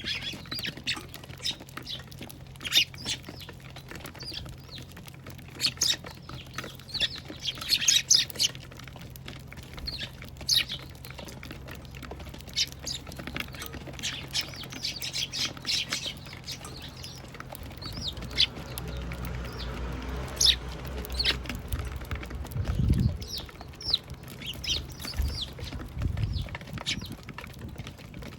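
Eurasian tree sparrows chirping at a bird feeder, many short sharp calls throughout. A low rumble comes in during the second half, with a brief low thump about three quarters of the way through.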